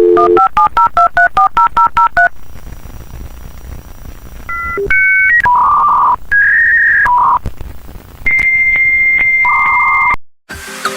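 A rapid run of about a dozen touch-tone (DTMF) dialing beeps, then a few seconds of hiss, then a sequence of electronic telephone-line signalling tones: short beeps and buzzy tones shifting between pitches, ending in a long steady high tone that cuts off suddenly.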